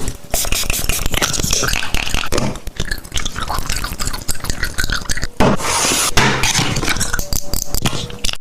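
Cosmetic packaging being handled and opened: a continuous run of scraping, rustling and clicking from cardboard and plastic.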